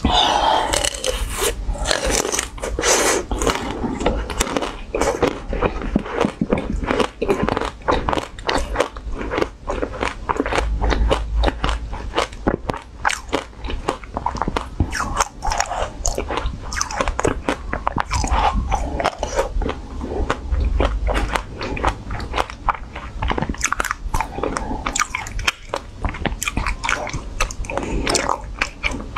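Close-miked biting and chewing of frozen ice cream bars: crisp crunches, several a second, with mouth sounds between.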